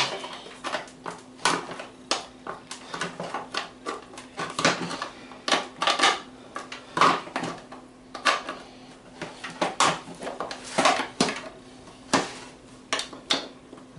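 Steel lid of a sealed 7.62×39 mm ammunition spam can being punched and pried open along its rim with the can's own metal opener tool. The metal clicks and scrapes come irregularly, about two a second.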